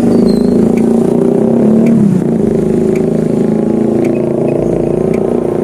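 A motor engine running steadily and loudly, with a faint regular ticking over it.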